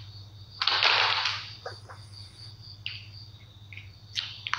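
Faint steady high-pitched insect trilling over a low hum, with a short burst of hiss about a second in and a few sharp clicks near the end.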